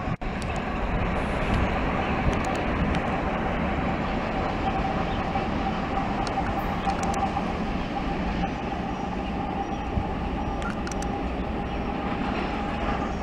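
Loaded freight tank train rolling away on the rails, with its rear pushing locomotive receding. The sound is a continuous rumble of wheels on rail with a faint held whine running through it.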